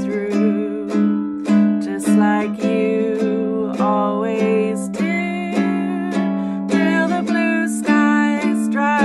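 Ukulele strummed in a steady rhythm while a woman sings a slow melody over it.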